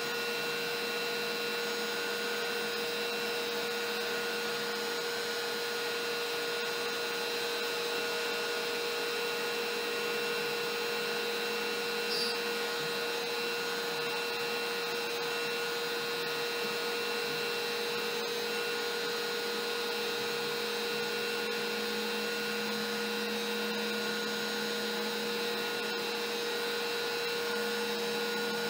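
Router on a LowRider CNC v3 spinning at its lowest dial speed, its single-flute upcut bit cutting MDF at 12.5 mm depth as the gantry feeds along: a steady motor whine with a constant hum of cutting noise.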